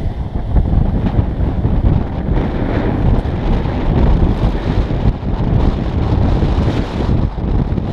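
Wind rushing over a microphone mounted on the outside of a car as it pulls away and gathers speed. The rumble rises within the first second and then stays loud and steady.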